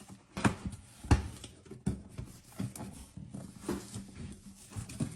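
Cardboard box and packaging being opened and handled by hand: irregular knocks, scrapes and rustles, the sharpest knock about a second in.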